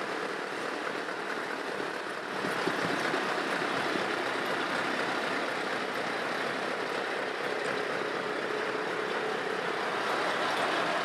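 Heavy truck on the move: steady engine and road noise without clear pitch, getting a step louder about two seconds in.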